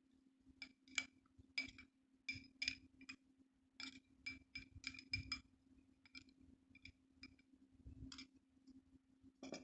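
A spoon clinking and tapping against a glass container in a run of light, irregular strikes, each ringing briefly, over a faint steady low hum.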